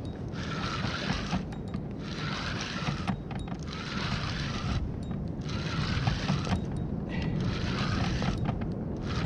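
Wind rumbling on the camera microphone, with a hiss that comes and goes about every second or so.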